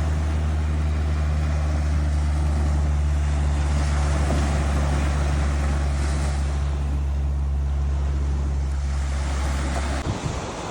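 An engine running steadily with a low, even hum, over wind and surf noise; the hum cuts off abruptly near the end.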